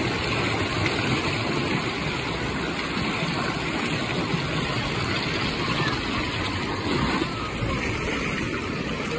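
River rapids rushing and churning around an inflatable kayak: a steady, loud wash of white water close to the microphone.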